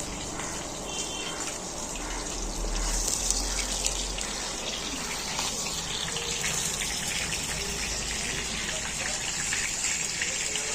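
Water gushing steadily, with many small crackles on top.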